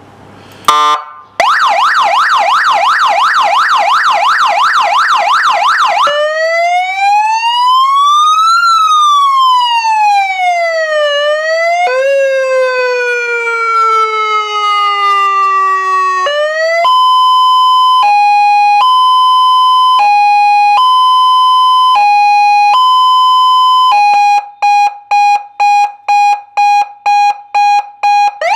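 100 W electronic siren sounding loudly through its horn speaker, switched from one tone to the next on its handheld controller. A click comes first, then a fast warble, one slow rise and fall, and a slow falling wail. After that a steady two-tone hi-lo alternation, and near the end rapid repeated beeps about three a second.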